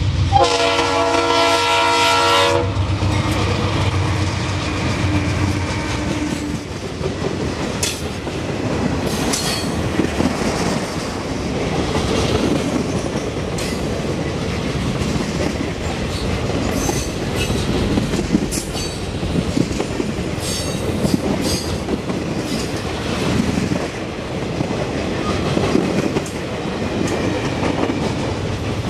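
A diesel freight locomotive's air horn sounds for about two seconds, a chord of several notes, as the train reaches a grade crossing. Then a long string of freight cars and boxcars rolls past, with steady wheel rumble and clatter on the rails and occasional short squeals and metal clanks.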